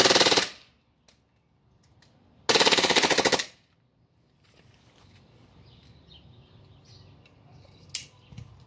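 Gas-powered airsoft Glock 18C pistol firing in full auto: a short rapid burst right at the start, then a second burst of about a second beginning some two and a half seconds in, emptying the magazine. A single sharp click comes near the end.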